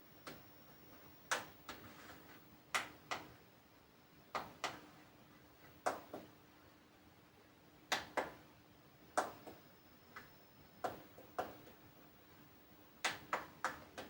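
Sharp, irregular clicks and light taps, often in quick pairs a few tenths of a second apart, recurring every second or two over a faint steady hum.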